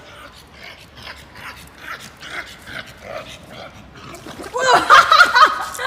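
A dog vocalizing: faint short cries at first, then a louder run of high, wavering cries from about four and a half seconds in.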